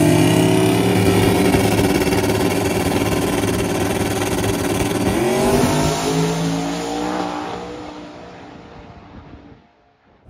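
Drag car's engine at full throttle as it pulls away from the start line; the pitch climbs, dips at a gear change about five seconds in and climbs again, then the sound fades away as the car runs off down the track.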